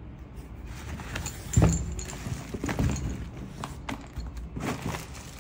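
Handling noise: a few separate knocks with rustling between them as cables are moved about in a foam-lined packing crate, the loudest knock about a second and a half in.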